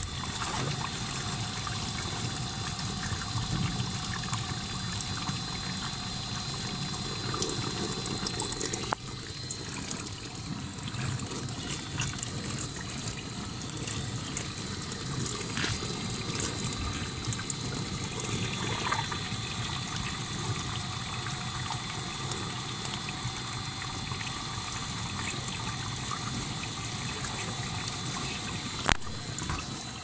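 Whirlpool dishwasher running with its lower panel off: water rushing and trickling through the pump and wash system, steady throughout. It drops in level about nine seconds in, and there is a single sharp click near the end.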